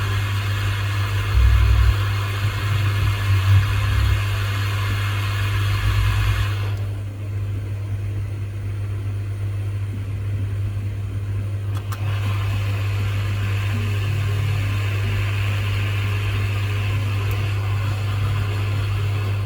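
Steady low electrical hum from bench equipment, with an airy blowing hiss on top that cuts off sharply about seven seconds in and comes back about five seconds later.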